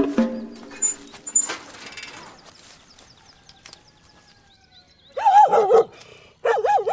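Dog barking in two bursts of quick barks, the first about five seconds in and the second a moment later, running on past the end.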